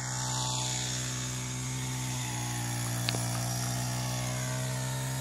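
Small-engine brush cutter running at a steady speed, with one short click about three seconds in.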